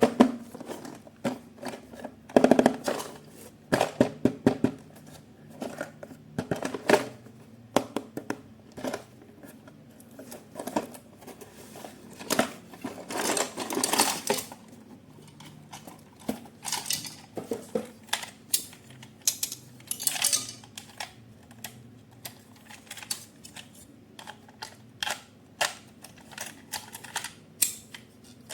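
Handling noise from unboxing a toy: irregular clicks, knocks and clattering of small hard parts, with a few stretches of rustling packaging.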